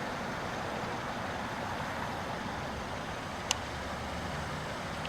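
Steady rumble and hiss of an oncoming train, with a single sharp click about three and a half seconds in.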